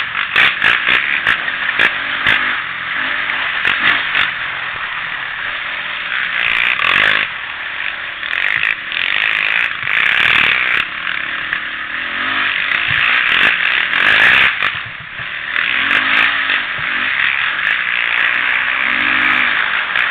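Quad (ATV) engine running while riding a dirt trail, its pitch rising and falling with the throttle, with clatter and knocks from the bumpy ground.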